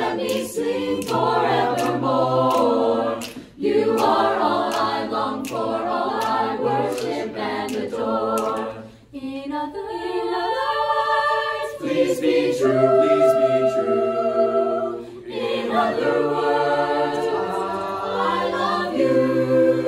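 A mixed teenage a cappella group singing in close harmony, with a low sung bass line under the upper voices. Near the end it holds a last chord.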